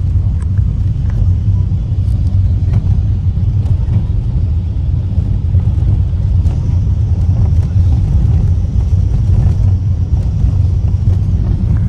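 Steady low rumble of a bus's engine and road noise, heard from inside the passenger cabin while it drives. A faint high whine joins about halfway through.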